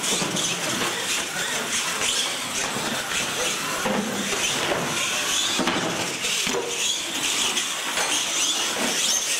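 Radio-controlled monster trucks racing across a concrete floor: their motors whine, rising and falling in pitch as they speed up and slow down, over a steady rush of tyre noise.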